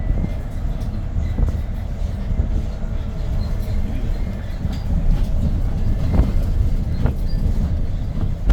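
Cabin noise of a Hyundai New Super Aerocity CNG city bus on the move, heard inside near the front: a steady low rumble from its C6AF 290 hp CNG engine and the road, with scattered rattles and knocks from the body and fittings, a sharp knock at the very end.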